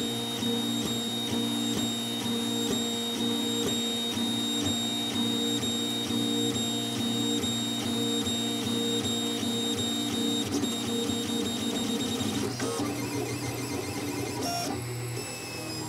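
Solidoodle 3D printer's stepper motors running in steady whining tones as the extruder head lays down infill, the pitches shifting near the end as the moves change.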